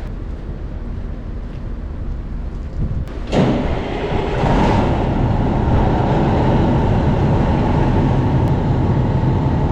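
A diesel grain semi truck's engine starting from cold about three seconds in, then running steadily at idle as it warms up.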